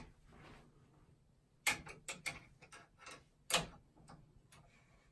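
About nine light clicks and knocks over three seconds: a plastic embroidery hoop being slid onto and seated in the hoop holder of a Brother multi-needle embroidery machine.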